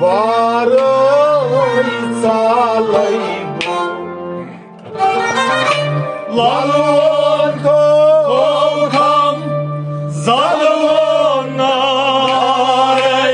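Kashmiri devotional kalam music: a sliding, wavering melody line over a steady low drone, pausing briefly twice.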